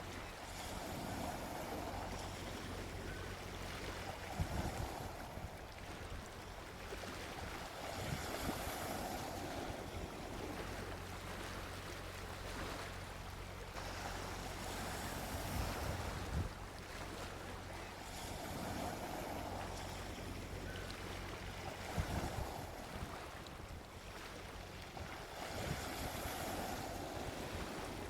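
Gentle ocean waves breaking and washing up on a beach, a steady surf hiss that swells and fades every few seconds over a low constant rumble.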